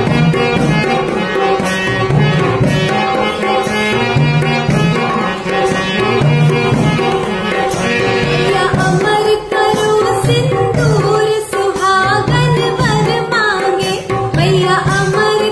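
Bundeli folk song: an instrumental passage of tabla and held melodic notes, with a woman's singing voice coming in about halfway through.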